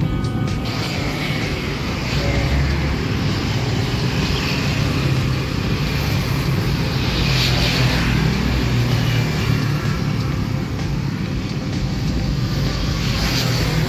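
Motorcycle and scooter traffic passing on a road: a steady engine rumble and tyre noise, louder as a bike goes by near the middle.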